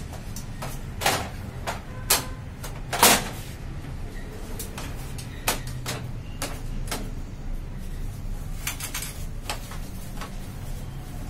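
Hard plastic clicks and knocks as parts inside the open front of a Xerox WorkCentre 7500-series colour copier are handled and seated, about four sharp ones in the first six seconds (the loudest about three seconds in), then lighter taps, over a low steady hum.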